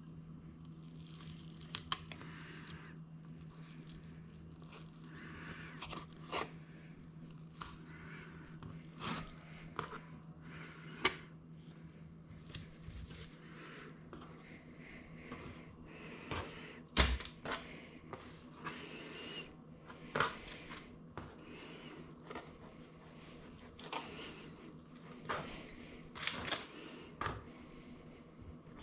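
Kitchen handling noises: irregular clicks, taps and light crinkling, with one sharper knock about halfway through. A low steady hum runs underneath and fades out about halfway.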